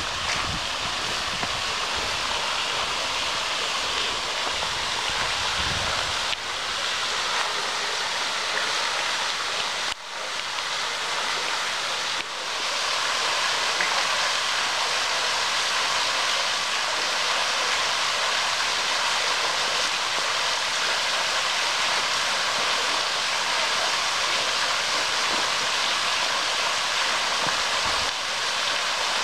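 Small waterfall pouring and splashing: a steady rush of falling water, a little louder after about twelve seconds.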